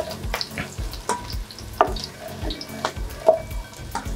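Chopped onion sizzling in hot vegetable oil while a slotted spatula stirs it around the pot, with irregular knocks of the spatula against the pot. The onions are being fried toward golden brown.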